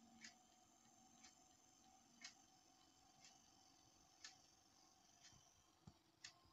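Faint, evenly spaced ticking about once a second, some ticks stronger than others, over a faint steady hum.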